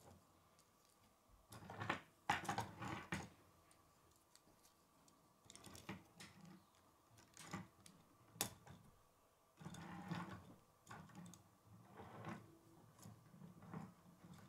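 Plastic K'nex pieces clicking and rattling as they are handled and snapped together, in scattered bursts with the loudest handling about two seconds in and a sharp click about eight seconds in.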